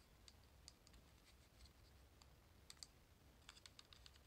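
Faint plastic clicks and taps from the housing of a Panasonic Dentacare EW1211 water flosser being handled and fitted together, with a quick pair near the middle and a run of clicks near the end.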